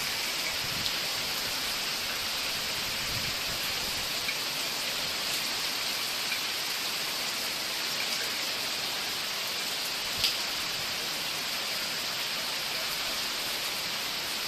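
Heavy tropical rain from a tropical depression falling steadily as an even hiss, with scattered drop ticks and one sharper tick about ten seconds in.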